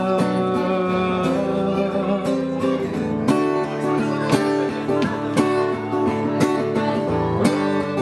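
Acoustic guitar strummed in a steady rhythm, with a strong accented strum about once a second, under a man's singing voice.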